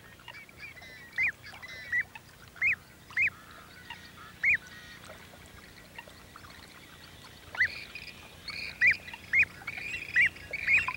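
American coot chicks peeping: short high calls, at first one every second or so, then coming faster in the last few seconds.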